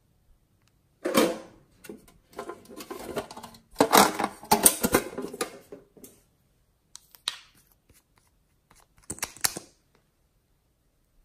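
Close-up handling of a plastic lip gloss tube and slime: several short bursts of clicking and crackling, the longest and loudest in the middle, with quiet gaps between.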